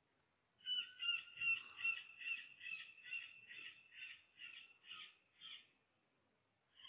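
A rapid series of high, harsh animal-like calls, about three a second. They start about a second in, are loudest at first, then fade and slow over about five seconds.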